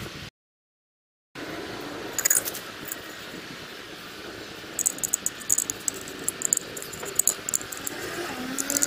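Light metallic clinks and taps of a brush cutter's muffler and its fittings being handled and set against the engine, in scattered clusters. About a second of dead silence comes near the start.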